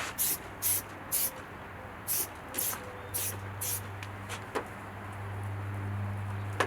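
Trigger spray bottle spritzing detailing spray onto the car's paint as clay-bar lubricant, seven quick sprays in the first four seconds. A low steady hum swells in the second half.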